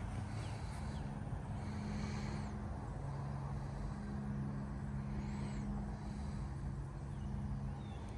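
Golf cart driving along: a steady low hum over a rumble.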